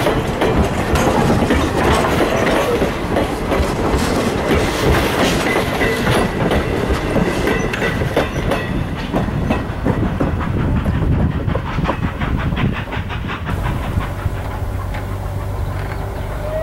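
Passenger railroad coaches rolling past, their wheels clicking over the rail joints in a steady clickety-clack with a low rumble; the clicking thins out near the end as the train moves away.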